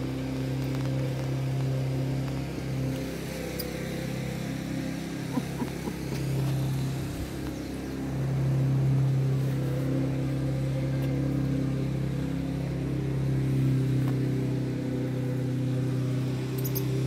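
A steady low mechanical hum, like a motor or engine running, that swells slightly about eight seconds in, with a few faint clicks about five seconds in.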